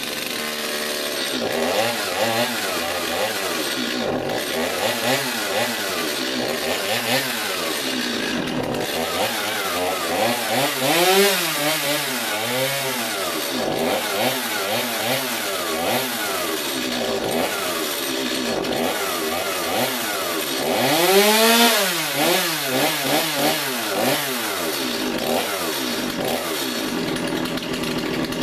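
Stihl MS250 chainsaw's two-stroke engine running on its test run after a carburetor rebuild, the throttle blipped over and over so the pitch rises and falls about every one and a half seconds. The highest rev comes about 21 seconds in.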